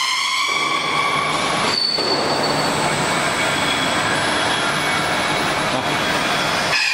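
Open dual-shaft mixer running under test, with its high-speed disperser driving the batch: a loud, steady rushing noise with a faint high whine. It cuts in abruptly about half a second in, dips briefly about two seconds in, and cuts off abruptly just before the end.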